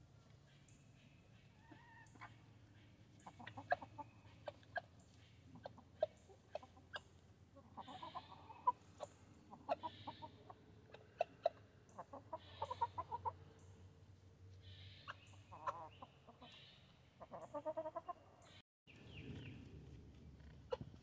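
Backyard chickens clucking in short runs, mixed with scattered sharp ticks of beaks pecking feed from a plastic feeder tray.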